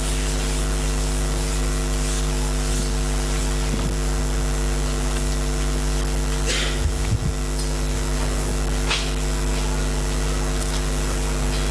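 Steady electrical hum made of several even tones over a low drone, with a couple of faint brief rustles partway through.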